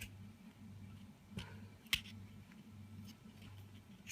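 A few faint, sharp plastic clicks from a BMW F30 remote key fob as the metal key is pushed hard into the slot to pry off its stiff back cover, the loudest about two seconds in. A steady low hum runs underneath.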